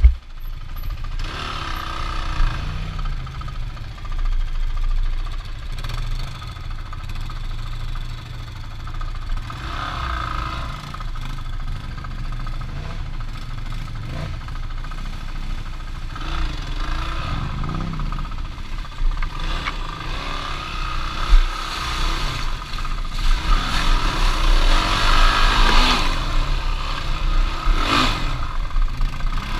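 Off-road vehicle engine running on a ride, revving up and easing off several times.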